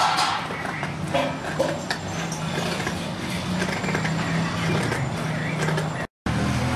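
A steady low motor or engine hum under general background noise, cutting out briefly about six seconds in.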